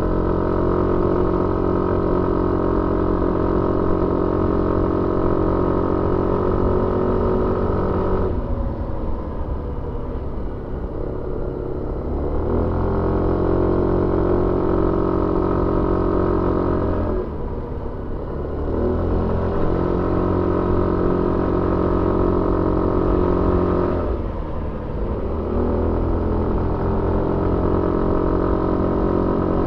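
Suzuki Avenis 125 scooter's single-cylinder engine heard on board, pulling at steady revs. Three times the throttle is eased off and the revs fall away, then climb back as it pulls again.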